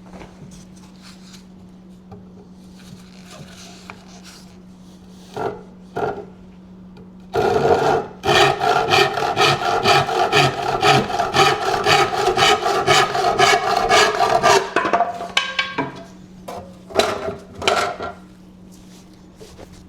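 Hand saw cutting through a wooden stake, about seven seconds of rapid, even back-and-forth strokes, roughly four a second, with a few wooden knocks before and after.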